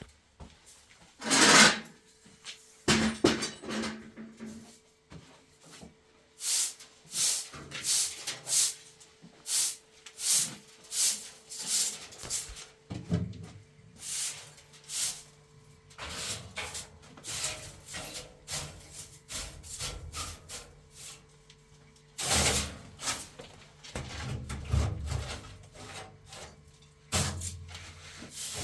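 Hand tool scraping wood in repeated strokes, roughly one or two a second, with short pauses between runs.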